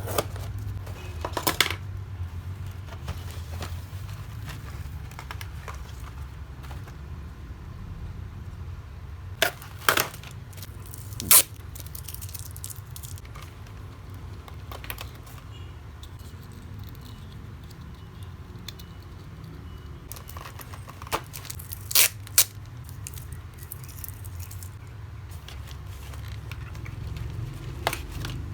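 Doll packaging being handled and opened: scattered crackles, sharp clicks and bits of tearing from cardboard and plastic, over a low steady hum.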